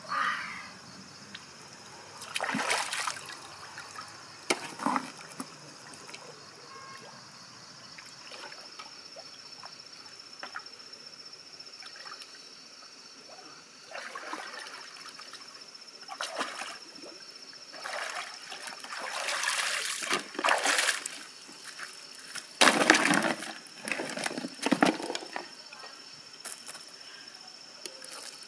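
Shallow river water splashing and sloshing in separate bursts as someone wades in it and lifts freshwater mussels out by hand, with a steady high thin drone in the background.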